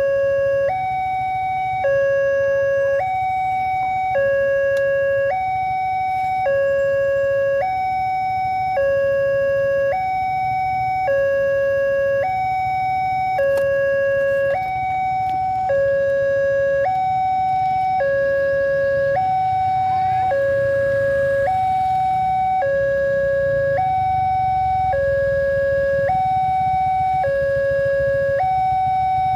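Electronic warning alarm of a railway level crossing sounding continuously, a low and a high note taking turns about every three-quarters of a second: the signal that a train is approaching and the gates are closed. A low rumble runs underneath.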